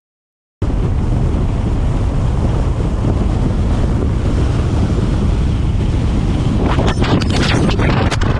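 Loud wind rumbling and buffeting on the microphone, cutting in abruptly about half a second in. A few sharp clicks and scrapes join it near the end.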